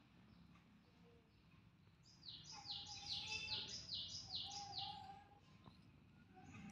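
A small bird chirping faintly: a quick run of about eight high, downward-sweeping chirps in the middle, about three a second.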